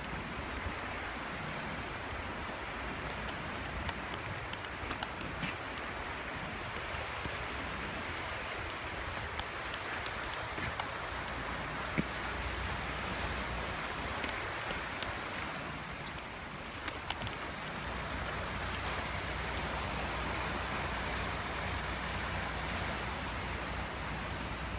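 Sea waves washing and breaking steadily among dark rounded boulders on a rocky shore, with a low wind rumble on the microphone. A few sharp clicks stand out, one about halfway through and another a few seconds later.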